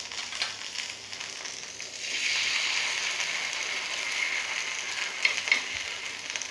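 Rice-and-bamboo-shoot batter sizzling in oil on a hot nonstick tawa as a fresh spoonful is laid on; the sizzle grows louder about two seconds in. A few light clicks near the end.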